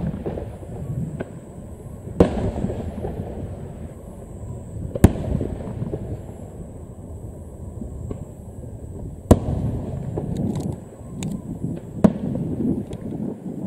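Aerial firework shells bursting: four sharp bangs a few seconds apart, each followed by a long rumbling echo, with a few small crackles between the last two.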